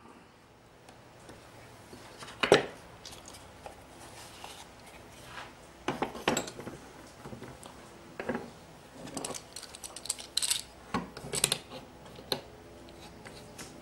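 A metal Joint Genie doweling jig, its clamp and wooden boards being handled and set in place: scattered knocks of wood and metallic clinks and clicks. The loudest knock comes about two and a half seconds in, and a run of clinks comes near the end.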